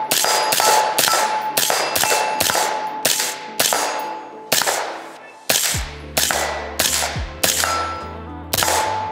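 Suppressed AR-pattern rifle (Type A Rifle Company 15.1-inch SPR with an Otter Creek OCM5 suppressor) firing about fourteen shots, roughly two a second at first and then more spaced out. Each shot is a sharp report with a fading tail, and a metallic ring lingers after many of them.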